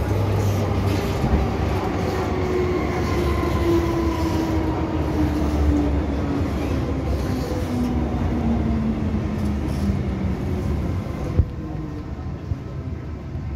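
An MTR M-Train electric multiple unit braking into a station, heard from inside the car: the traction motors' whine falls steadily in pitch as the train slows, over the rumble of the running gear. A single click comes about eleven seconds in, after which the noise drops.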